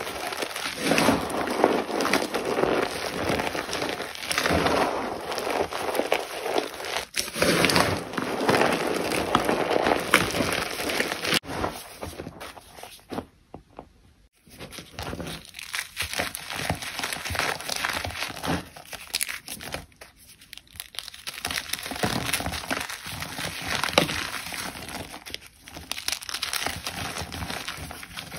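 Gym chalk being crushed and crumbled, a dense crunchy crackling full of small cracks, with a short break about halfway through.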